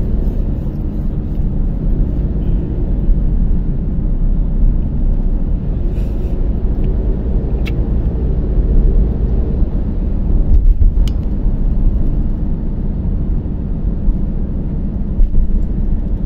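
A car's road noise and engine hum heard inside the cabin while driving: a steady low rumble of tyres and engine at speed. Twice a small click sounds over it.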